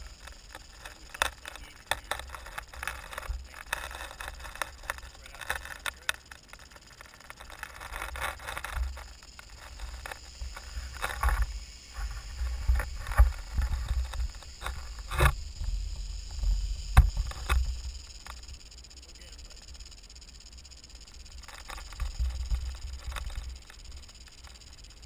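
Rattlesnake rattling: a steady, high buzz throughout, under low rumble of wind on the microphone, with a few sharp clicks and scrapes, the loudest about 15 and 17 seconds in.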